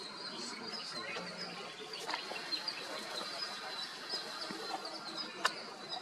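Birds chirping in short repeated notes over a steady high-pitched background buzz, with one sharp click a little after five seconds in.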